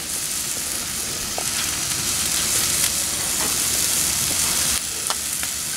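Steak searing on a Pit Boss flat-top gas griddle, a steady sizzle with a few faint pops of fat as its crust builds.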